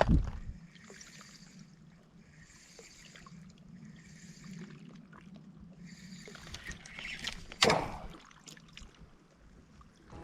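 Kayak paddle strokes in water, a soft swish about every two seconds, with a louder splash or knock a little before eight seconds in.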